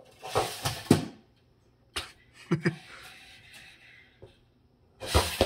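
Brushless-motored 1/24-scale micro RC monster truck driving in short spurts: its motor and gears whir as it accelerates, with a few sharp knocks around one and two seconds in.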